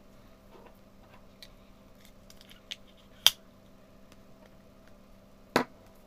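Hard plastic toy capsule pieces clicking and knocking on a wooden tabletop as they are handled and set down. There are a few small clicks and two sharp ones, one about three seconds in and another near the end, over a faint steady hum.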